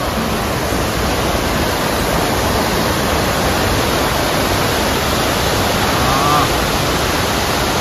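Mountain stream running high: white water rushing over rocks and pouring off a concrete weir, a loud, steady wash of water.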